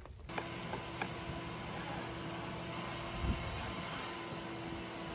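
A steady mechanical hiss with a faint hum, a few light knocks about half a second to a second in, and a thump about three seconds in; it starts and stops abruptly.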